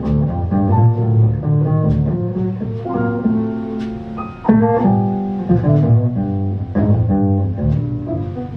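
Instrumental jazz ballad played live: low bass notes under sustained chords that change every second or so, with no singing.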